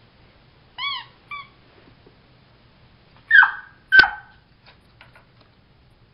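Puppy giving two short, high whimpering yips about a second in, then two loud, sharp yaps about three and four seconds in, the second with a thump.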